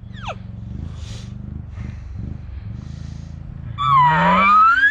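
A man blowing an elk bugle call through a bugle tube, imitating a bull elk: starting about four seconds in, a low growl rises into a loud high whistle that climbs and holds.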